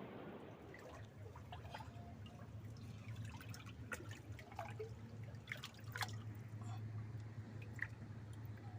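Small drops of water dripping and trickling, many short irregular drips, over a faint steady low hum.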